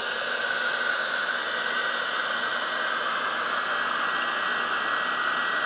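Handheld heat gun running steadily, a constant blowing hiss with a faint high whine, as it blows hot air over a board to drive an iron nitrate stain's colour-changing reaction.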